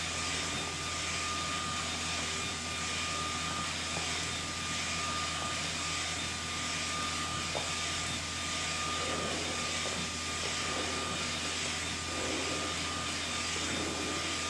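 SK UV6145 inkjet printer running: a steady fan-like rush of air with a constant thin whine and a low hum.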